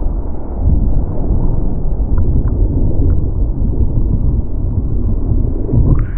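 Dull, steady rumbling rush of whitewater and wind buffeting a surfboard-mounted camera as the board rides a breaking wave.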